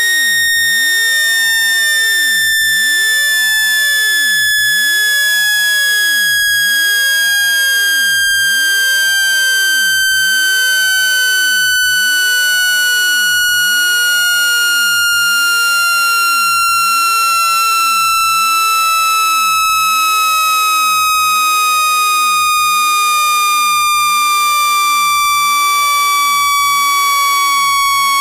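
Speaker water-ejection tone: a loud, steady electronic tone with a bright, buzzy edge, sliding slowly and evenly down in pitch. It is played through a phone speaker to vibrate trapped water droplets out of it.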